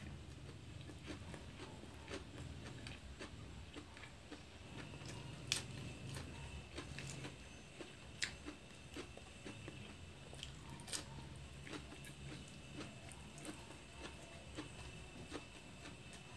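Faint chewing and mouth sounds of a person eating steamed chicken by hand, with a few sharp clicks now and then, the loudest about five and a half seconds in.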